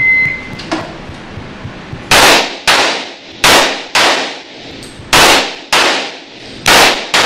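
An electronic shot timer's start beep, a short high tone, then eight pistol shots fired in four quick pairs, each pair about half a second apart, each shot echoing briefly.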